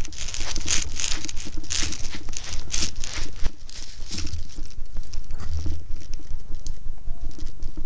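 Tall dry grass and brush swishing and crackling against a moving person, in a run of rustling swishes about one a second that weaken in the second half, with dull low thuds of footsteps underneath.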